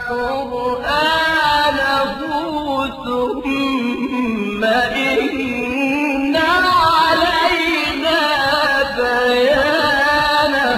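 A man chanting Qur'an recitation in a drawn-out melodic style, holding long, wavering notes with ornamented turns.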